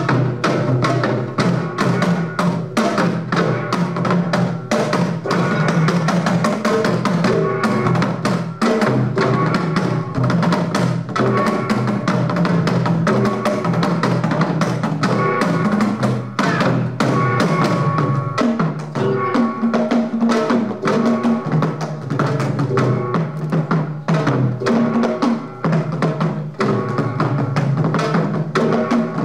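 Korean traditional percussion ensemble (samul nori / pungmul) playing: janggu hourglass drum and a set of buk barrel drums beating fast and densely over a ringing hanging gong (jing).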